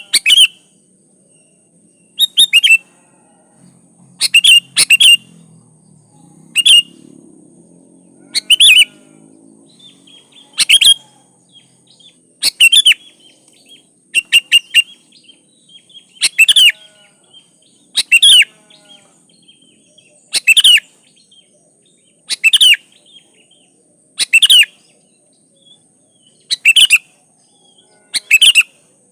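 Sooty-headed bulbul (kutilang) singing short phrases of a few quick, gliding notes, repeated about once every two seconds.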